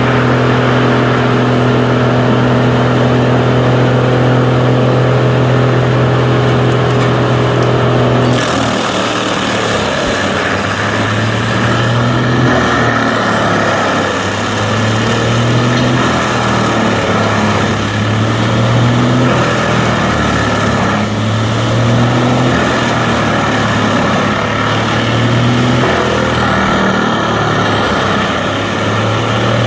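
Heavy engine of tree-removal machinery running loud. It holds a steady note at first, then about eight seconds in the note drops and begins rising and falling every couple of seconds.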